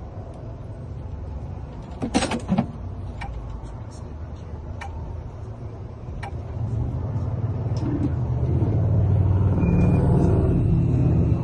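A few sharp clicks about two seconds in, then a low vehicle rumble that builds over several seconds and stays loud near the end.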